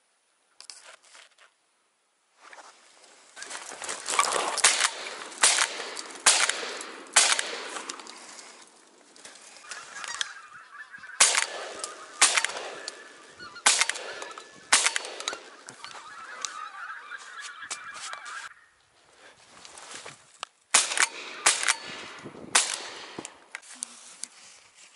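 A flock of wild geese honking loudly, many short calls overlapping, with a denser steady chorus of calls through the middle.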